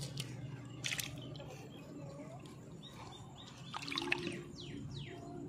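Wet splashing and dripping as hands work a weed-tangled fishing net and pull a tilapia out of it, with short sharp sounds about a second in and again around four seconds.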